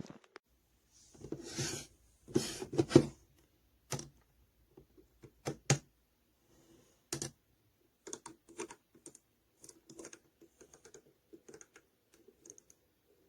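Handling noise: two short rustles near the start, then scattered sharp clicks and a run of light irregular taps, like fingers on a hard plastic or keyboard-like surface.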